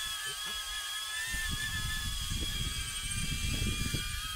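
DJI Avata FPV drone's motors and ducted propellers running with a steady high whine whose pitch wavers slightly. A low rumble joins about a second and a half in.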